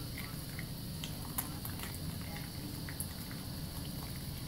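Tap running a thin stream into a bathroom sink while soapy hands rub a wet bar of soap, with scattered wet clicks and squelches from the lather.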